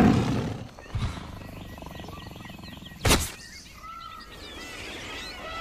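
Added wild-animal sound effect: a big cat's roar dying away at the start, a thud about a second in and a sharper knock about three seconds in, then many short, high twittering calls like birds.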